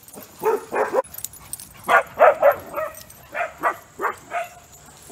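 Dogs barking in play, about ten short, sharp barks in quick clusters while they chase each other.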